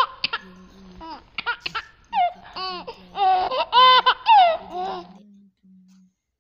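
High-pitched laughter in a run of short rising-and-falling bursts, stopping about five seconds in.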